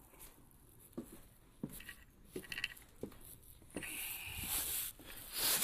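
Footsteps walking at an even pace, a soft thud about every two-thirds of a second, with a rushing noise building up over the last second or so.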